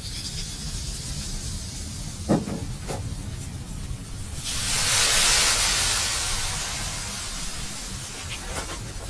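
A loud hiss swells up about four and a half seconds in and slowly dies down, over a steady low rumble. A single knock sounds about two seconds in.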